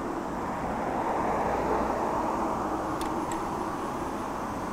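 Road traffic noise that swells about a second in as a vehicle goes by, then eases. Two faint sharp ticks come about three seconds in.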